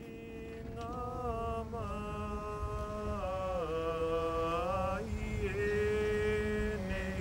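A single voice singing a slow, wordless-sounding chant in long held notes that slide up and down between pitches, over a low steady drone. It swells gradually in loudness over the first few seconds.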